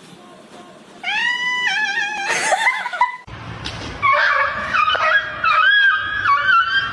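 Cat meowing: a drawn-out call about a second in, then a longer run of wavering calls that step up and down in pitch in the second half.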